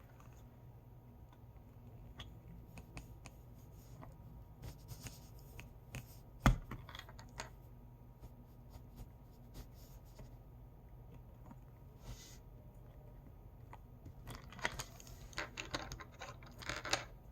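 Small plastic clicks and scrapes as a Fashion Fidgets mermaid doll is pushed into its plastic fidget tail. There is one sharp knock about six and a half seconds in and a busier run of clicking near the end.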